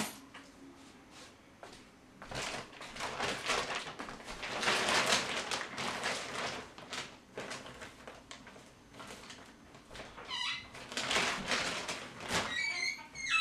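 Rustling of a large reusable shopping tote and the clothes inside it as they are rummaged through and pulled out, in several spells. A short high squeak comes near the end.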